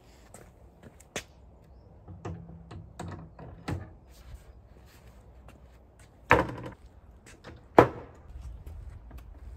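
Wooden lid and hinged doors of a slatted trash can enclosure being handled and shut: a series of light knocks and clicks, then two sharp wooden knocks about a second and a half apart near the end.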